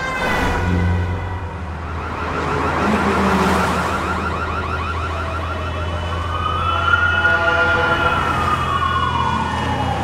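Emergency vehicle siren, first a quick repeating yelp and then, from about six seconds in, a slow wail that rises and falls, over a low steady drone.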